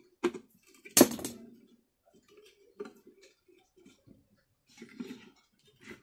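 Hand tools and small metal parts clinking on a fan's metal base: one sharp metallic clank about a second in, with scattered lighter clicks and taps around it.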